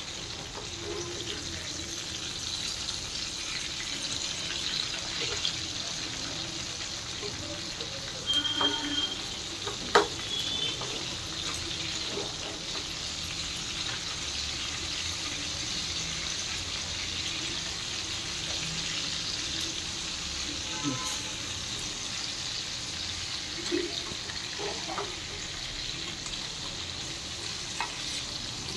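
Marinated fish steaks shallow-frying in hot oil in a nonstick pan, a steady sizzle, as a steel spatula turns them. One sharp tap comes about ten seconds in.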